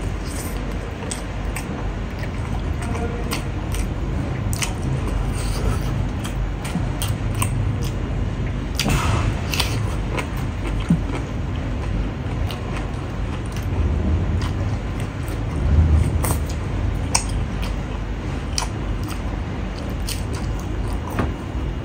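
A person chewing and smacking on pork trotters and rice eaten by hand, with many short wet clicks and squelches.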